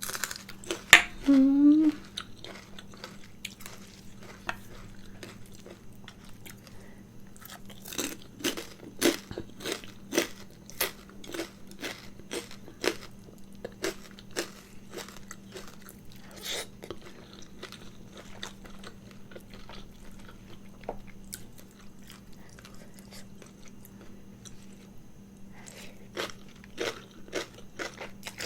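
A person chewing a mouthful of spicy mixed noodles close to the microphone, with many sharp crunches from crunchy bits in the food, dense for a stretch in the middle and sparser toward the end.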